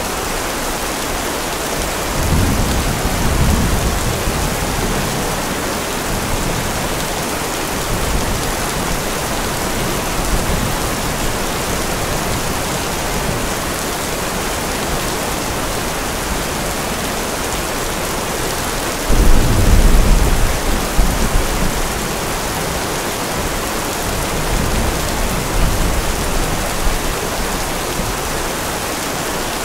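Steady rain with thunder: a low rumble about two seconds in, a louder clap about two-thirds of the way through that rumbles on for a couple of seconds, and a fainter rumble near the end.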